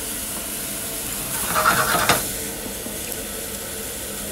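Carrots and onion halves sizzling steadily in beef dripping in a stainless steel frying pan, with a brief louder rustle about a second and a half in that ends in a sharp click.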